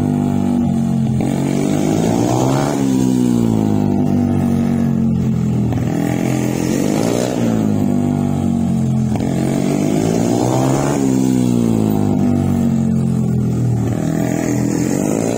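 Small mini GP racing motorcycle's engine revving, its pitch climbing and falling away in repeated waves every four seconds or so as it accelerates and backs off around a tight cone course.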